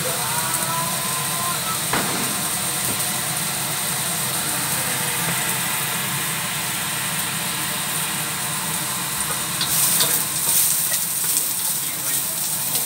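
Shallots and ginger sizzling in hot oil in a wok, a slotted wooden spatula stirring and scraping against the pan, the scraping loudest about ten seconds in.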